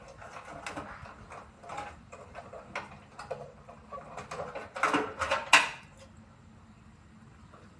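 Irregular clicks, knocks and metal clatter of tools and parts being handled while a front-loading washing machine is taken apart. The strikes come thickest about five seconds in, with one sharp loudest knock, then stop.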